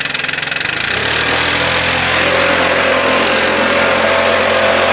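Stihl backpack leaf blower's two-stroke engine running just after being pull-started: a fast, even idle that grows louder and fuller from about a second in, then runs steady.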